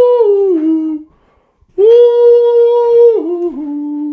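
A man singing a Christmas song in a high voice: two long held notes with a short break between, each stepping down in pitch at its end.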